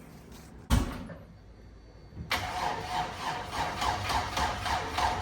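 A thump about a second in, then the Ford Fairmont's starter motor cranking the engine in a steady pulsing rhythm from a little after two seconds. The engine does not fire, and the battery is running flat.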